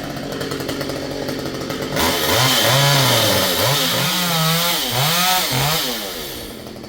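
Chainsaw running at a steady low throttle, then about two seconds in revving hard. At full throttle its engine pitch swoops up and down several times before it eases back near the end.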